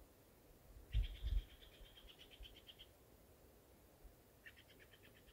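A small animal's high, rapid trill, heard twice: one about two seconds long starting about a second in, and a shorter one that fades near the end. A few low thumps come as the first trill begins.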